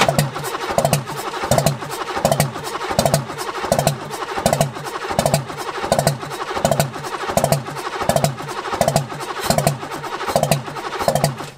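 Old diesel engine cranking on its starter motor without catching, with a heavy rhythmic chug a little more than once a second.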